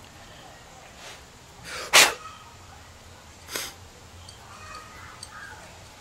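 Two short bursts of breath noise from a person: a loud, sharp one about two seconds in, and a weaker, shorter one about a second and a half later.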